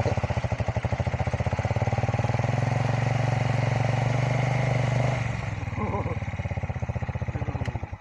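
Dirt bike engine running with the bike bogged in a muddy rut and being pushed. About five seconds in it drops to a slower idle, and it cuts out suddenly near the end.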